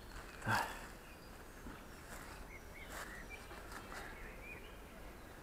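Faint, scattered bird chirps: short high notes here and there.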